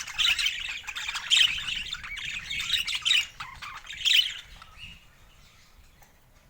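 Pet parakeet squawking and chirping in loud, choppy spurts, which die away about five seconds in.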